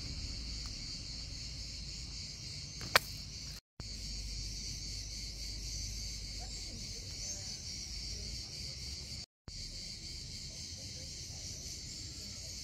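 Steady, high chirring of evening insects. A single sharp click comes about three seconds in, and the sound cuts out completely for a moment twice.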